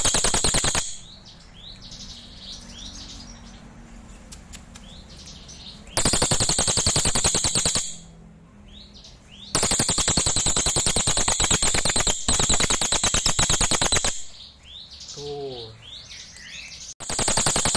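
Crested jay (cililin) giving its loud, very rapid mechanical rattle in four long bursts, with softer chirps and short whistled notes in the gaps between them.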